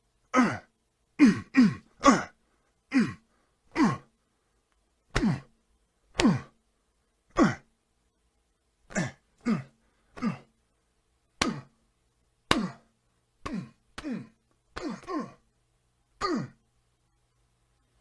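A man's short grunts, one after another, about twenty of them, each dropping in pitch.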